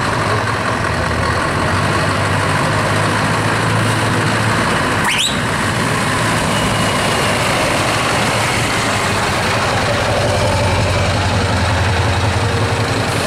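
Scania R-series truck's V8 diesel engine running steadily at low revs as the truck creeps along at walking pace, with a deep, even hum.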